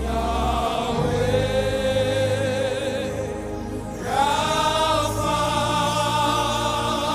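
Worship music: long held wordless sung notes with vibrato, a second note entering about four seconds in, over a steady low accompaniment.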